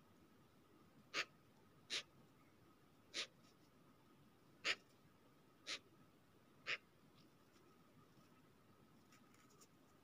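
Six short, sharp scratchy sounds at uneven intervals, made by Eurasian magpies feeding on the snow close by.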